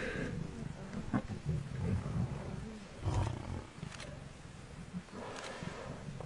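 Lionesses growling in low, repeated rumbles as they hold down and feed on a buffalo cow they have pulled to the ground, with a louder growl about three seconds in.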